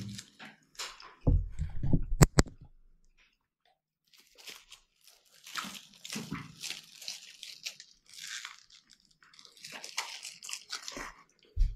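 Close-miked eating: a chicken shawarma being bitten and chewed, with scattered crackling as its paper wrapper is handled. The loudest part is a cluster of low bumps and two sharp clicks about two seconds in.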